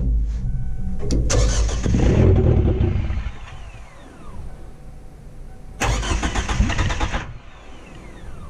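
1999 Kia Sportage engine cranked on the starter in short bursts, twice plus the tail of a third, each followed by a falling whine as the starter spins down; the engine does not keep running because the fuel pump relay has been pulled to run it out of fuel.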